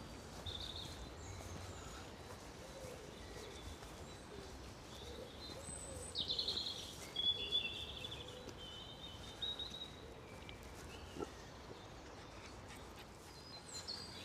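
Wild birds chirping and calling, a series of short high chirps and trills that is busiest from about six to eight seconds in, over a faint low rumble.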